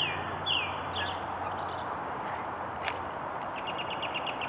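Small songbirds chirping: a few quick downward-slurred chirps in the first second and a fast trill near the end, over a steady background hiss.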